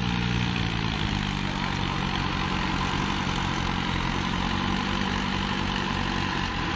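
Diesel tractor engines running steadily, several tractors hitched in a line pulling a stuck tractor out of the mud.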